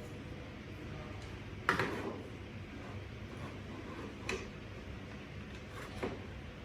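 Scattered clicks and knocks of small hard objects being handled: one sharper knock about two seconds in, then two lighter ones later.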